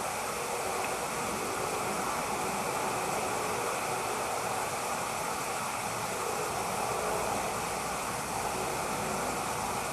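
Steady, even rushing noise with no distinct calls, knocks or other events.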